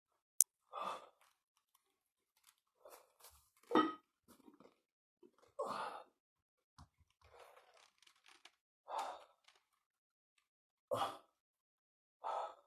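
A person breathing out in short breathy sighs, about one every two seconds, with a single sharp click about half a second in.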